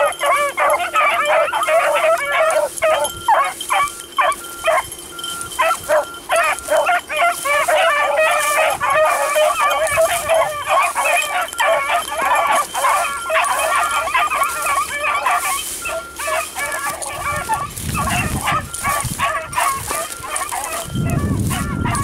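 A pack of beagles baying, many voices overlapping without a break. A low rumble comes in near the end.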